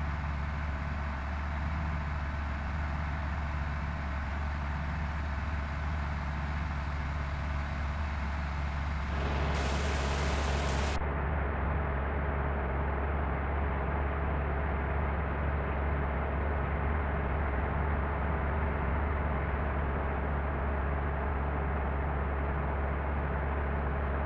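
Bus running on the road: a steady low engine and road rumble, with a brief hiss about nine and a half seconds in.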